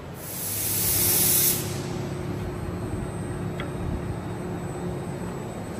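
A loud hiss builds over about a second and a half and cuts off sharply, over the steady low hum of a CNC press brake's running machinery.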